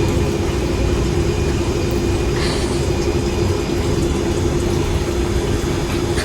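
Steady low mechanical hum with a constant droning tone, like an idling engine, and a brief faint scratchy sound about two and a half seconds in.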